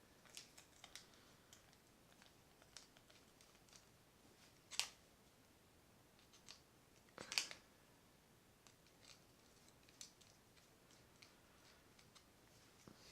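Faint, scattered clicks and ticks of a screwdriver and small metal parts as a screw is backed out of a spinning reel's bail trip arm, with two sharper clicks about five and seven seconds in.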